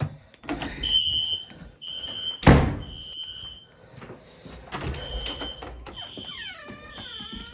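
Fire alarm sounder beeping a high tone in the temporal-three evacuation pattern: three short beeps, a pause, then three more. A loud thump about two and a half seconds in, and a creak gliding down and up in pitch near the end.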